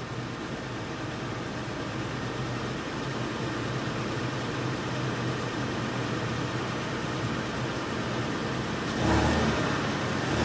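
2017 Toyota Tacoma's 3.5-litre V6 idling steadily through its stock exhaust, the engine not yet warm. About nine seconds in it is given a short rev and gets louder.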